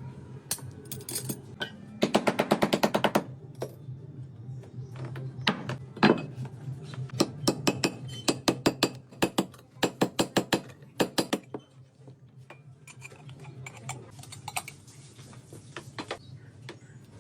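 Runs of rapid clinking, hard objects knocking together, about ten clicks a second at their fastest, over a steady low hum.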